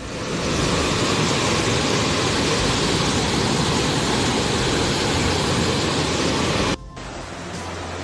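Floodwater torrent rushing in a dense, steady roar of churning water, cutting off suddenly near the end, after which a quieter rush of water continues.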